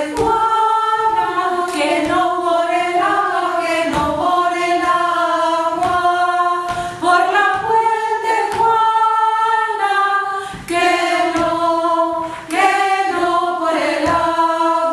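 A woman singing unaccompanied, holding long notes with short breaks between phrases.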